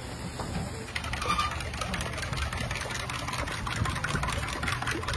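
Oyster omelette batter sizzling and crackling on a large hot griddle, the crackle growing denser about a second in, over a steady low hum.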